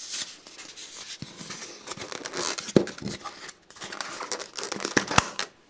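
Canopy hatch of a foam RC model aeroplane being fitted back over the battery bay by hand: foam and plastic rubbing and scraping, with scattered clicks and a sharp click about five seconds in.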